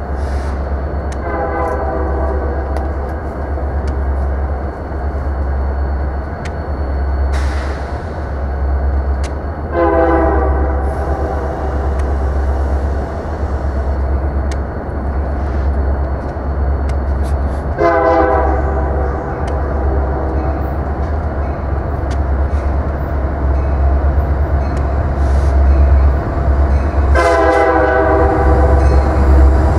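Union Pacific diesel freight locomotive's air horn sounding four long blasts, about eight seconds apart, over a steady low rumble, growing louder toward the end as the train approaches.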